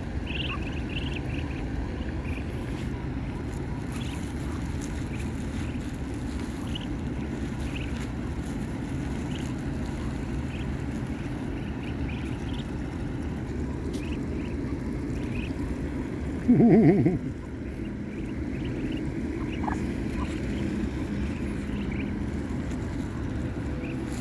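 Muscovy ducklings peeping now and then as they peck grain, over a steady low rumble. A short, loud, low-pitched call breaks in about two-thirds of the way through.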